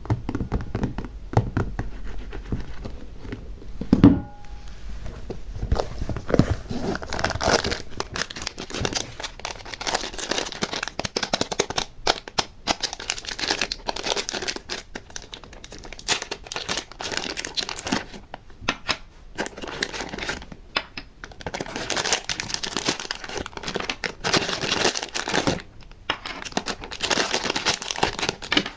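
Close-up crinkling and crackling of crinkly material being handled by hand, dense and irregular with many small clicks and brief pauses, and one thump about four seconds in.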